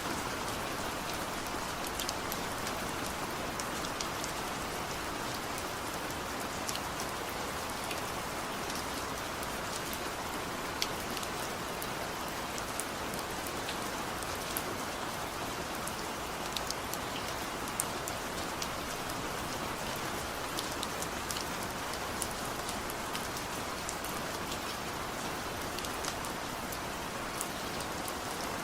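Steady rain falling, an even hiss with individual drops ticking sharply on a surface scattered through it; no thunder.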